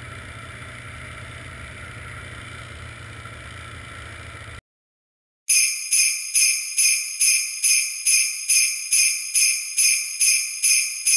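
A snowmobile running steadily along a trail, heard as an even drone that cuts off about four and a half seconds in. After a brief silence, jingle bells shake in a steady rhythm of about two and a half strokes a second, the opening of a music track.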